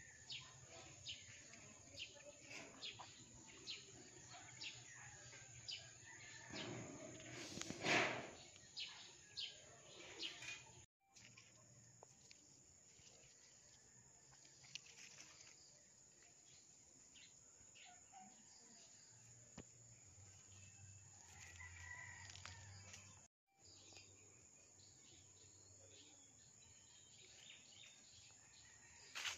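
Faint garden ambience with small birds chirping repeatedly, the short chirps most frequent in the first third. A brief louder noise comes about eight seconds in, and the sound cuts out for an instant twice.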